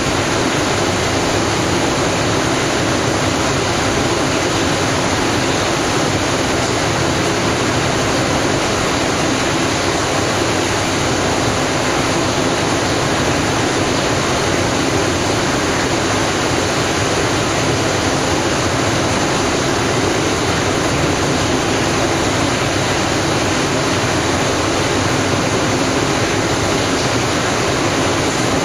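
Steady rushing of turbulent, bubbling water flowing through the salmon channel, an even unbroken noise.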